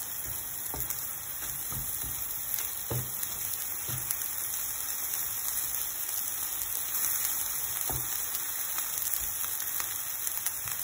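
Eggs, mushrooms and tomatoes sizzling in oil in a nonstick frying pan, with a steady hiss. A wooden spatula knocks softly against the pan several times as the mix is stirred.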